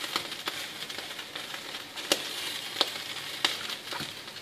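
A pot of vegetable broth simmering with a steady hiss, with about half a dozen sharp clicks and light knocks as wedges of pumpkin are set into it.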